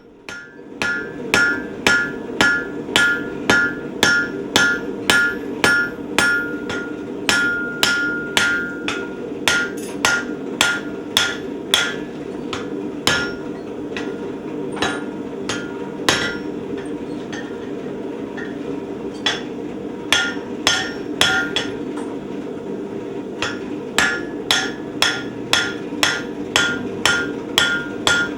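Hammer blows on hot steel at the anvil, about two a second, each with a ringing note, as the square ends of a steel wagon standard are rounded over; the blows thin out for a few seconds in the middle, and a steady hum runs underneath.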